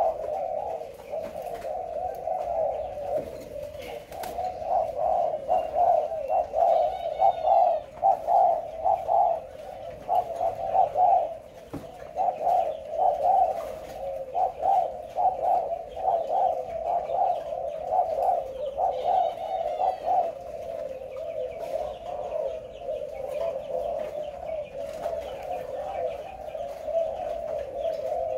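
Spotted doves cooing over and over, the calls coming in quick pulsed runs that overlap, with a few brief higher chirps above them.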